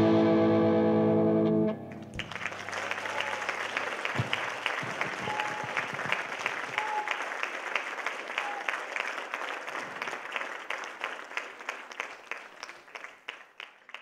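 A live rock band's final chord, electric guitar to the fore, held loud and cut off about two seconds in, followed by audience applause that thins out and fades away near the end.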